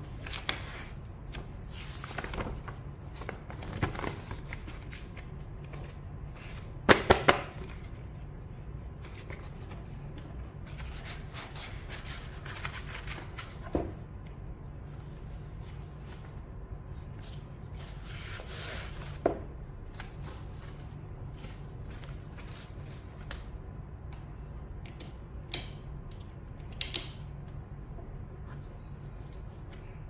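Handling noises from a hard-shell keyboard carrying case: scattered rustles, taps and clicks. Three quick sharp knocks come about seven seconds in. A steady low background hum runs underneath.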